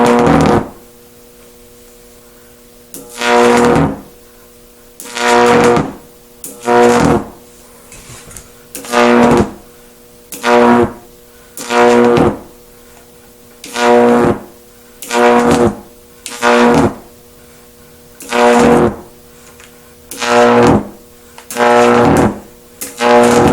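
High-voltage arcs drawn by a dual 4 kV center-tapped microwave-oven-transformer stack with capacitor resonance. About a dozen loud buzzing, crackling bursts, each half a second to a second long, come every one to two seconds. Each burst carries the same steady mains-hum pitch.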